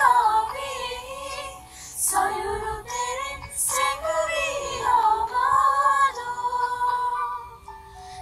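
A group of young women singing a Sinhala song together, unaccompanied. Near the end they hold one long note that fades away.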